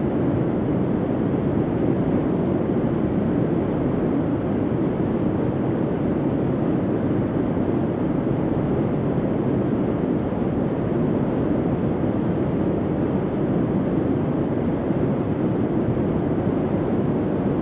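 Steady, low rumbling bunker-style ambient hum that stays even throughout, with no breaks, clicks or changes in pitch.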